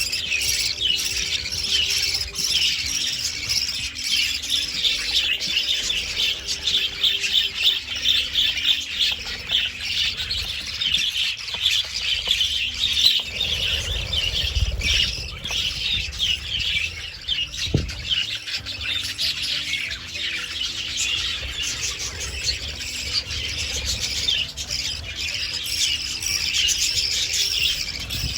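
Many budgerigars chattering together: a dense, unbroken mass of high chirps, squawks and warbles.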